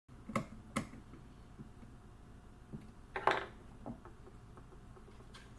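Light clicks and knocks of small hardware and printer parts being handled during kit assembly: two sharp clicks near the start, a louder short scrape about three seconds in, and a few faint ticks.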